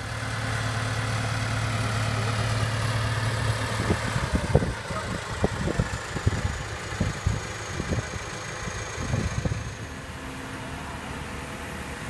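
Large mobile crane's diesel engine running steadily, with a series of sharp knocks and clunks between about four and ten seconds in.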